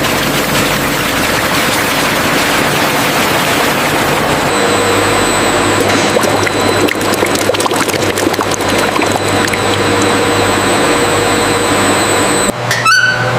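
Juice-processing machinery running with steady noise of flowing liquid. The sound changes abruptly about four and a half seconds in and again near the end, where a short rising tone is heard.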